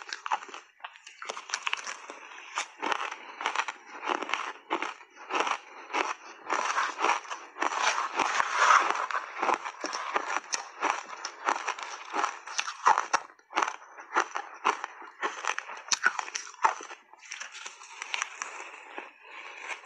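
Shaved ice crunching between the teeth as big mouthfuls are chewed: a dense run of irregular crisp crunches, thickest about halfway through. A metal spoon digs and scrapes through the shaved ice in the plastic tub between bites.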